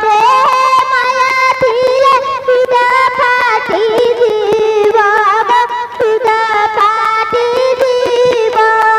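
A girl singing an ornamented, wavering melody with vibrato through a headset microphone, accompanied by hand-drum strokes and a steady held instrumental tone: a song of the Odia Ramlila stage.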